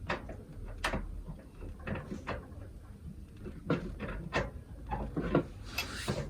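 Irregular metallic clicks and knocks as the motor mounting and belt of an industrial sewing machine are handled and adjusted to set the belt tension, with a short scraping rustle near the end.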